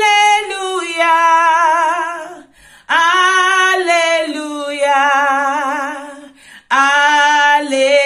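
A woman singing a worship chorus solo and unaccompanied, drawing out "hallelujah" in long held notes with vibrato, in three phrases with short breaths between them.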